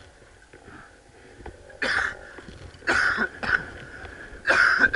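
Three loud, rough bursts of a person's breath close to the microphone, about a second apart.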